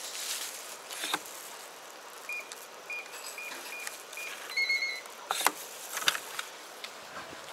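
Electronic digital door lock on a shower-room door beeping as it is operated: about six short beeps of the same pitch, then a brief higher two-tone chime of the lock releasing, followed by a couple of sharp clunks.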